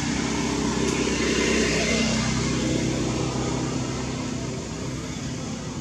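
A motor vehicle's engine running as it passes by: it grows louder to about two seconds in, then fades away.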